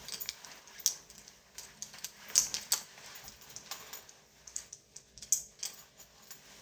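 Handling of a jacket being taken up and put on: irregular light clicks and rustles, some sharper than others, with no steady rhythm.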